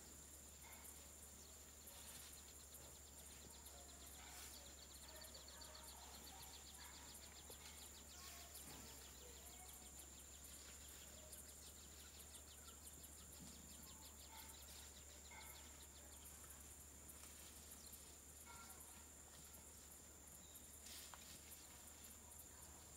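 Near-silent pasture ambience: a steady high-pitched insect drone, with a rapid insect trill for a few seconds near the start and faint scattered bird chirps.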